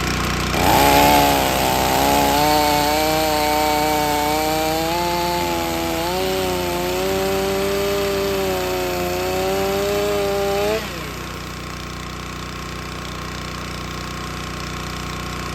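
Stihl MS 500i two-stroke chainsaw starting about a second in and running with a slightly wavering pitch, then winding down and stopping about eleven seconds in. A log splitter's engine runs steadily underneath.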